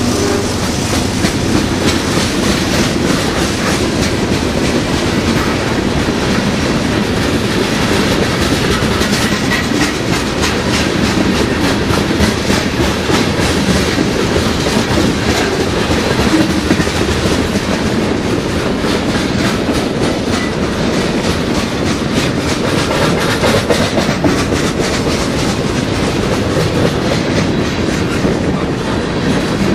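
Freight train of tank cars rolling past close by: a steady rumble with the wheels clicking over the rail joints.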